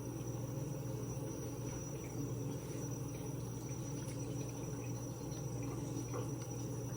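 Steady low hum with a thin, high-pitched whine above it and a few faint soft clicks: steady kitchen background noise.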